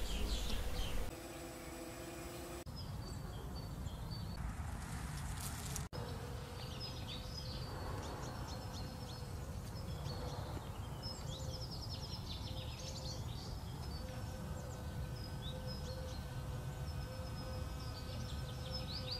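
Honeybees buzzing in flight, a steady low hum that wavers slightly, with small birds chirping repeatedly. The background changes abruptly a few times in the first six seconds.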